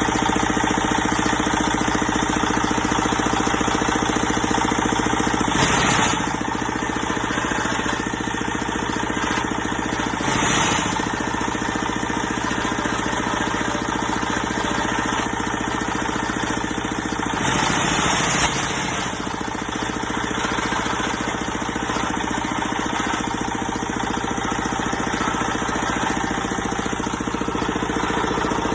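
The motor of a manual concrete block press machine runs steadily. About six, ten and eighteen seconds in come three louder, noisier stretches, the longest about a second.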